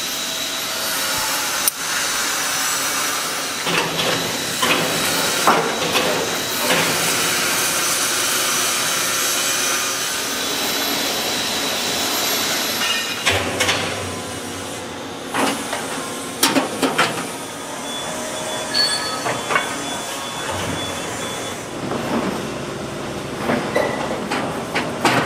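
Busy factory machinery noise: a steady hiss and whir, then, from about halfway, scattered sharp metallic clanks and knocks.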